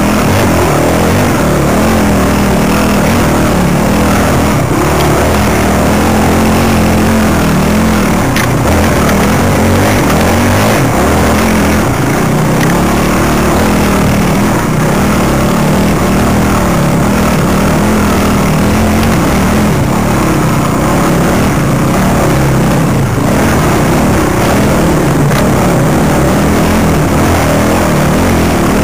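Enduro motorcycle engine running loud and continuously under load on a rough trail, its note wavering up and down with the throttle.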